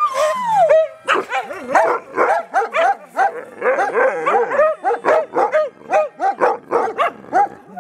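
Several dogs barking, yipping and howling together. It opens with one falling howl, then rapid, overlapping barks and yelps come about three a second.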